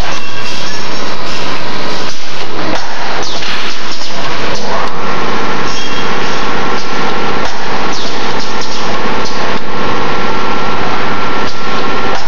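Steel wire ring forming and welding machine running loudly, with repeated clanks and knocks over a steady mechanical noise; a steady whine comes in about five seconds in and holds.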